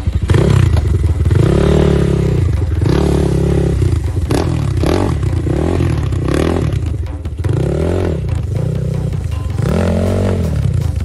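Enduro motorcycle engine revving hard in repeated surges, its pitch rising and falling about once a second as the throttle is worked.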